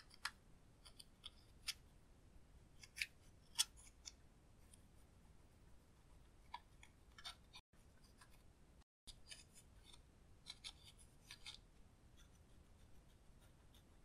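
Metal-tipped dotting tool scraping and gouging pressed eyeshadow out of a plastic palette pan: faint scratching with scattered sharp clicks, two louder clicks about three seconds in and a quick run of them near the end.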